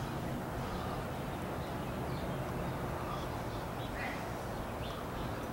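Steady outdoor background noise with a low hum, and one faint short chirp about four seconds in.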